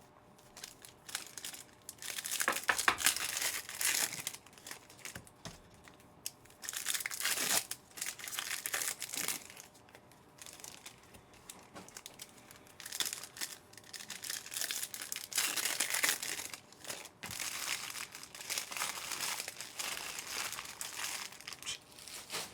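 Trading card pack wrappers being torn open and crinkled by hand, in several bursts of crackling with short pauses between them.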